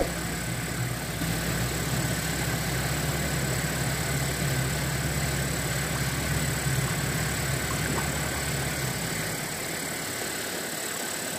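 Kubota L1-285 tractor's diesel engine running steadily while hauling a heavy load of logs. Its low drone fades away about nine seconds in.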